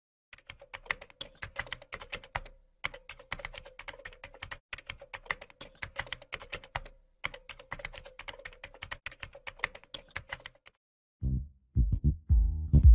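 Keyboard typing sound effect: rapid keystroke clicks in four runs separated by brief pauses. Near the end, a bass-heavy music sting starts.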